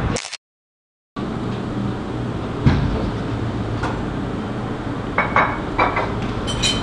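Steady room noise with a low hum, broken by a couple of single knocks and, near the end, a few short clinks. The sound cuts out to silence for under a second near the start.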